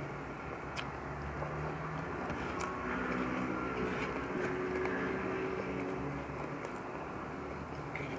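A motor vehicle's engine drones, swelling through the middle and easing off toward the end, under a few faint clicks from chewing.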